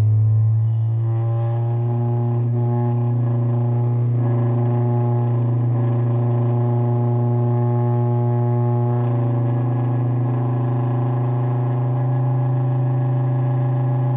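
A subwoofer playing a steady low tone for a cymatics water test. Above it sits a layer of higher overtones, which changes about a second in and again around nine seconds in.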